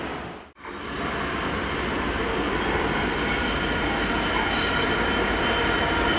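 A Class 66 diesel-electric locomotive, with its two-stroke V12 engine, runs slowly toward the platform at the head of a freight train with a steady rumble. From about two seconds in, short high-pitched wheel squeals come and go.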